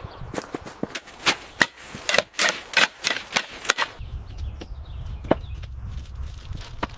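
A quick run of sharp knocks and clacks, several a second; about four seconds in it changes abruptly to a low rumble with only a few scattered knocks.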